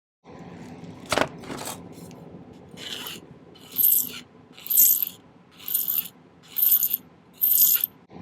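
A sharp metallic click, then six even strokes of a hand file on a piece of sterling silver wire, about one a second, shortening it to fit.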